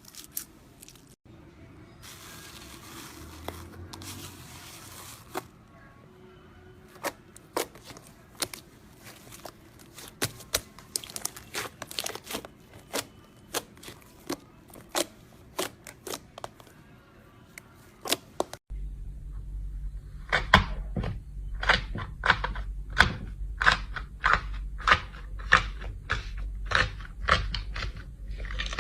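Slime being pressed and squeezed by hand, giving a run of sharp clicks and pops, about one or two a second, that come faster and louder after a cut near two-thirds of the way in, with a low steady hum beneath them.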